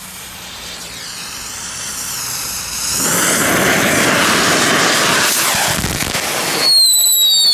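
Small category 1 ground fountain fireworks hissing as they spray sparks, building up over the first few seconds into a steady rush. Near the end the hiss stops abruptly and high whistles, falling slowly in pitch, take over.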